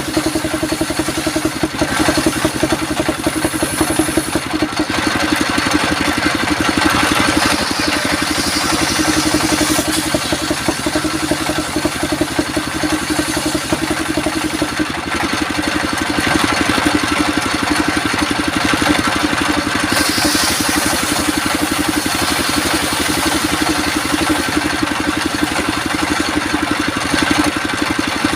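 Engine of a sawmill circular-saw rig running steadily, with a rapid, even firing beat.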